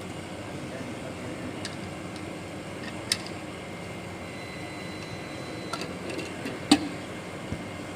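Steady mechanical hum, like a fan or pump running, with a few light clicks. A sharp click about three seconds in and a louder one about two-thirds of the way through.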